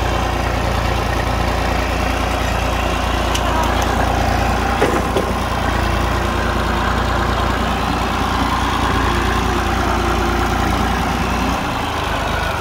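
Small Massey Ferguson tractor's diesel engine running steadily as the tractor drives slowly, with a single brief knock about five seconds in. The low rumble shifts near the end.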